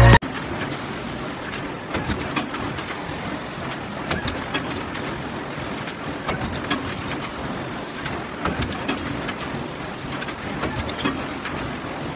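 Sheet-metal stamping press line with its automatic transfer system running: steady mechanical clatter with irregular metallic clicks, and a short hiss of air about every two seconds.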